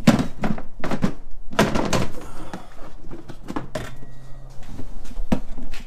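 A series of knocks and thunks, six or seven in all, from hard objects being handled and set down, with a short noisy clatter about two seconds in.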